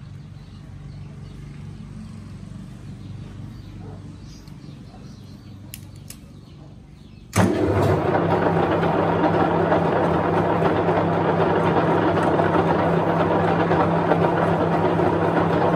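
Metal lathe with a four-jaw chuck: a faint low hum with a few light ticks, then about halfway through the lathe comes on suddenly and the spindle and chuck run steadily and loudly.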